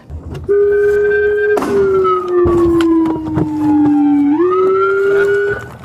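Police vehicle siren sounding as one loud tone: steady, then sliding slowly down in pitch over a few seconds, rising back quickly and holding before it cuts off near the end.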